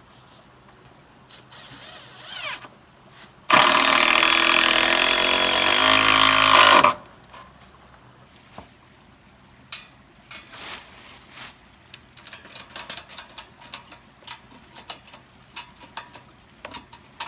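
A cordless power drill runs hard for about three seconds, driving a fastener, and winds down in pitch as it stops. After it come scattered light clicks and knocks of handling materials.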